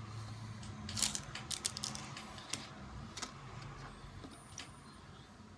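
Small clicks and taps of an M.2 drive, standoff and screw being handled and fitted on a PC motherboard. There is a quick cluster about a second in, then a few single clicks spaced out.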